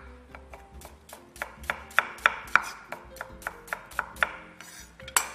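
Chef's knife slicing a red onion into thin strips on a wooden cutting board: a steady run of sharp taps of the blade on the board, about three a second, with one heavier stroke near the end.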